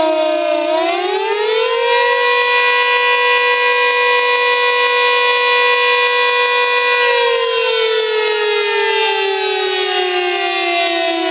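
Lion King LK-STH10H long-range warning siren wailing loudly. Its pitch rises about a second in, holds a steady high tone for about five seconds, then falls slowly toward the end.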